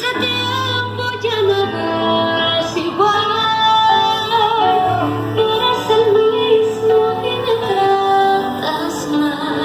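Music with a woman singing a melody over a steady bass line.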